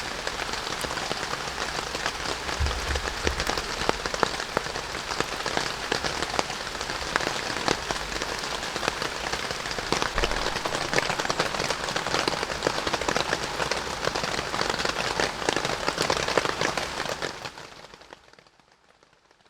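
Rain falling on a surface: a dense, even hiss of many small drop impacts. It fades out near the end.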